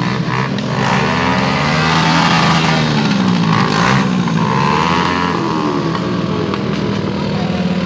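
Several motorcycle engines being revved again and again, their pitches rising and falling in overlapping waves.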